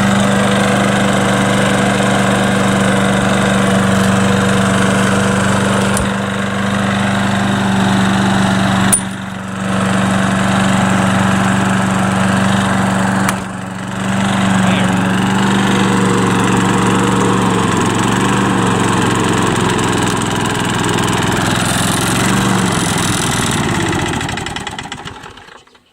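Craftsman 6.5 horsepower walk-behind mower engine running steadily, dropping off briefly twice. Near the end it slows and dies away to a stop.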